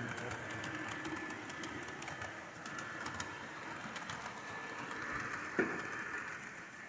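HO scale model trains running on a club layout: a steady whirring with a high thin tone and faint ticking from the wheels on the track. A single knock comes a little past halfway.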